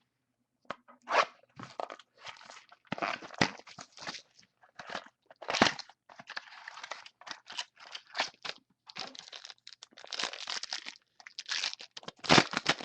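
Wrapper of a football trading card pack being torn open and crinkled, with irregular crackling and crunching throughout as the pack is opened and the cards are handled.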